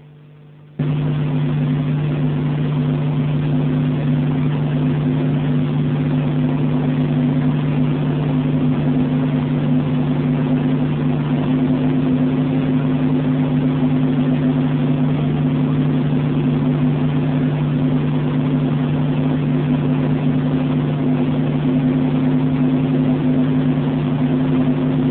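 Police helicopter cabin noise: the engine and rotors make a steady, unchanging drone with a constant low hum, cutting in suddenly about a second in.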